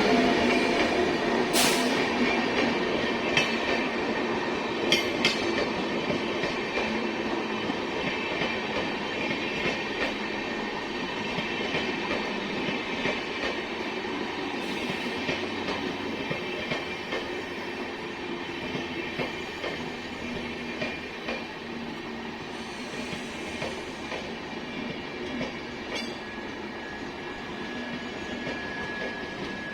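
An express train running along the track, its wheels clattering with a few sharp clacks over the rail joints, the sound fading slowly as the train draws away.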